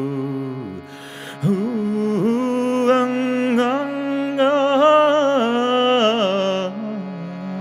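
Overtone singing over a steady shruti box drone. The voice breaks off about a second in with a breath, then comes back on a held note, with single overtones high above it picked out and shifting up and down.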